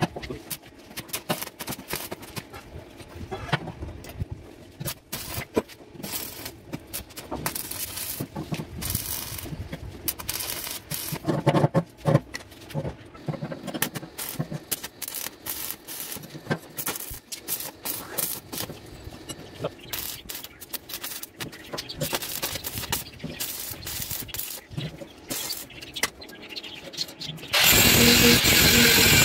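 Arc welding crackling and sputtering in irregular spurts as a steel rebar rod is welded to upright steel strips, with a few hammer taps on the steel at the start. Near the end an angle grinder starts up and cuts into the rebar with a loud, steady grinding whine.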